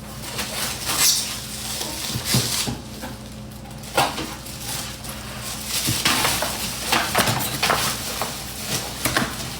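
Kitchen dishes and utensils clattering: scattered clinks and knocks of crockery and cutlery being handled, over a low steady hum.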